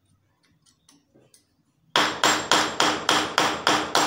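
A hammer striking in a quick, even run of about eight blows, about four a second, starting about halfway through, each blow sharp with a short ring, as the satellite dish wall bracket is fixed to the wall.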